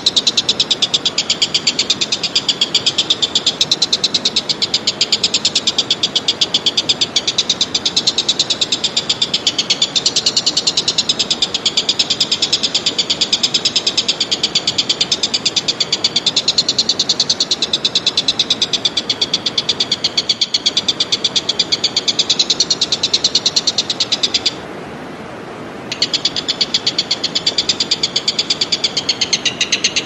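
An animal's loud, high-pitched, very rapid rattling trill, held almost without pause, breaking off for about a second and a half near the end before starting again.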